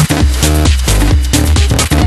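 Loud electronic dance music with a steady, driving beat and heavy bass.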